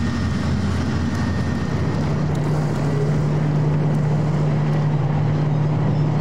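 Formation of military helicopters (AH-64 Apache, AS565 Panther, EC725 Caracal and AS332 Super Puma) flying past: a loud, steady rotor and engine drone with wind on the microphone. The low hum in it shifts a little higher about two seconds in.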